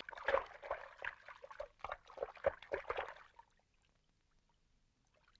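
Water splashing and sloshing in irregular small splashes and plops, a character floundering in a river. It stops about three and a half seconds in.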